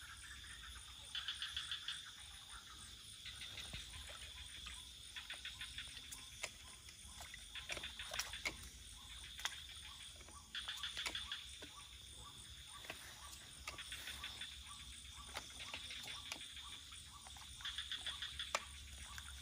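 Night chorus of insects and frogs: a steady high insect trill, with short bursts of rapid clicking calls every couple of seconds and a few scattered ticks.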